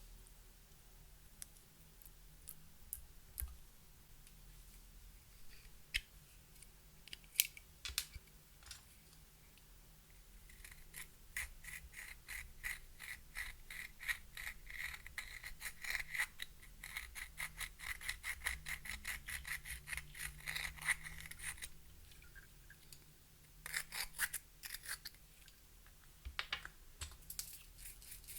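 Close, dry clicking and scraping as makeup is crushed and worked for mixing into clear slime, with a quick run of light clicks, about five a second, through the middle and a short burst of them again near the end.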